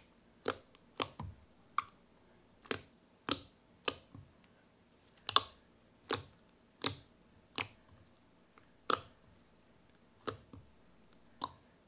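Fingers poking and pressing into fluffy glue slime, making a string of short, sharp, wet pops and clicks. They come irregularly, about one or two a second.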